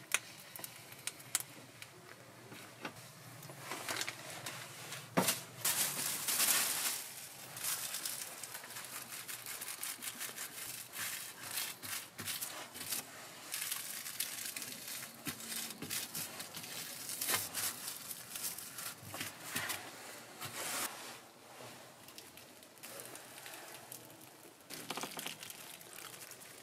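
Aluminium foil crinkling in irregular bursts as hands spread and smooth it flat on a workbench, with a sharp click about five seconds in.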